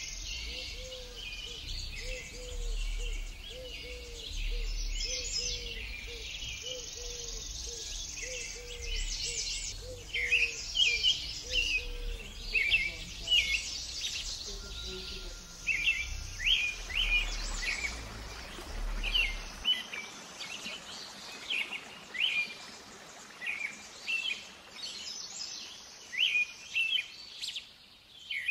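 Small birds chirping and singing in quick, sharp notes again and again. For the first dozen seconds a lower call is also repeated steadily, a little more than once a second.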